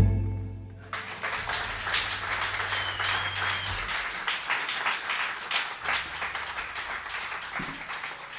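The last chord of a jazz trio (electric guitar, double bass and drum kit) dies away, and about a second in an audience starts applauding, slowly fading, with a short whistle about three seconds in.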